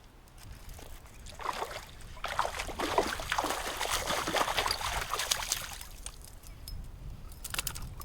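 Water splashing and sloshing as a hooked bass thrashes at the surface while it is reeled in to the bank, from about a second in until about six seconds. Wind rumbles on the microphone throughout.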